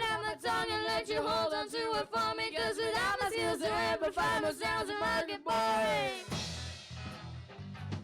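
Kids' band performing: a voice sings a melodic line over light, regular percussion. About six seconds in, the bass and drums come back in.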